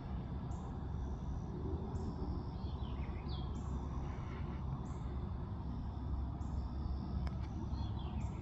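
Steady low outdoor background rumble, with a small bird's short descending chirps about three seconds in and again near the end.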